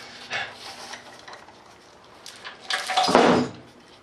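Metal clattering and scraping as parts are handled against a bare cast-iron diesel engine block, with a louder scraping clunk about three seconds in.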